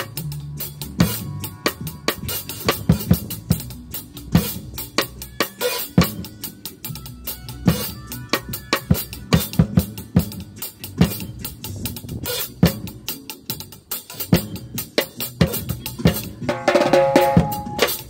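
Acoustic drum kit played in a reggae dub groove, with kick drum, snare and cymbal strokes in a steady rhythm. It plays over a recorded reggae backing track with a bass line, which has a brief held melodic note near the end.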